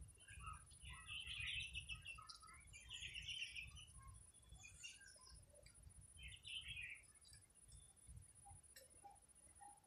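Faint bird chirping in three short bursts, over a low rumble.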